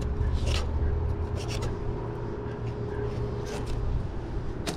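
Fillet knife cutting along a black drum's scaly skin: several short scraping strokes over a steady low hum.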